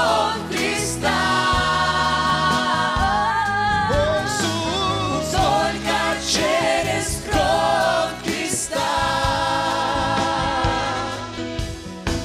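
Live worship music: a church band playing a slow worship song, with sustained singing from the worship team and congregation over keyboard and bass.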